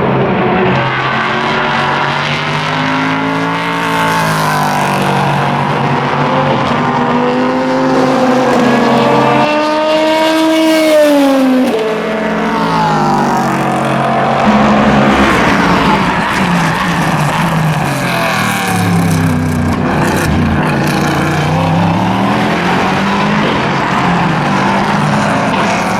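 Several endurance race cars driving past at speed, their engine notes overlapping. The pitch climbs through the gears and falls away, with a long rise about ten seconds in that drops sharply at a gear change.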